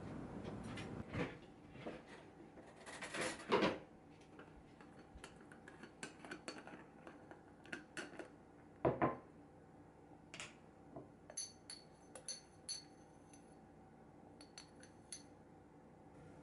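Handling of a glass instant-coffee jar and a metal spoon: the lid is worked off, then coffee is spooned into a cup, with scattered clicks, a couple of louder knocks, and a run of light ringing clinks of the spoon against the glass a little past the middle.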